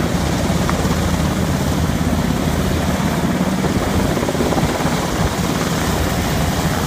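Black Hawk helicopter hovering low overhead: the steady beat of its main rotor over the engine noise.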